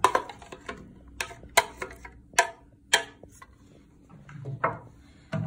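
Plastic fork clicking and knocking against a clear plastic container as diced tomato is scraped out of it: about ten sharp taps at an uneven pace.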